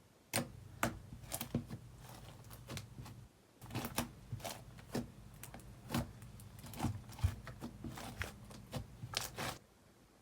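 Thick, glossy slime with styrofoam beads being squished and stretched by hand, making irregular sharp clicks and pops, several a second, with a short pause about three seconds in.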